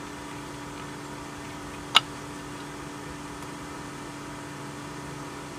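Steady machine-like hum with a few held tones, and a single sharp metallic click about two seconds in as the clutch center nut is spun onto its shaft by hand.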